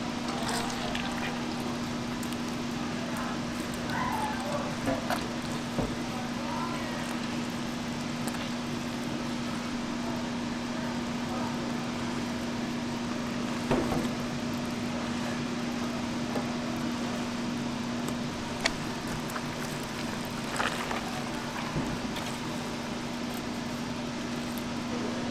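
Smoked pork shoulder being pulled apart by gloved hands in a stainless steel pan: soft tearing of the meat with a few sharp clicks and knocks against the pan. Under it runs a steady machine hum.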